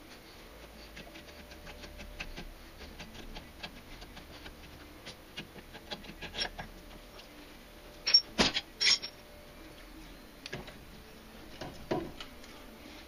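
Light metallic clicking and ticking as a bolt is worked by hand out of the clamp that holds the steering knuckle to the front shock absorber. A little past halfway come about three sharp metal clacks close together, and there is one more near the end.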